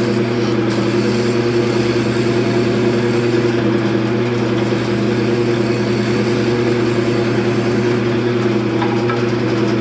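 Wood lathe running steadily with a constant motor hum, while a turning tool cuts the outside of a spinning wooden bowl, adding a continuous hiss.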